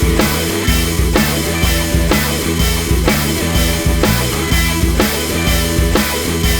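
Background rock music with a steady drum beat, bass and distorted guitar.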